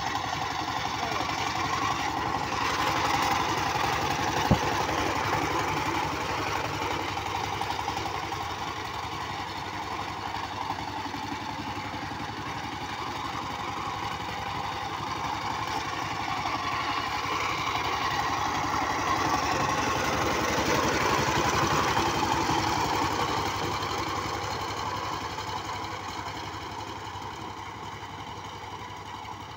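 Two-wheel power tiller's 20-horsepower engine running steadily while tilling soil. It grows louder twice and fades near the end, with one short click about four and a half seconds in.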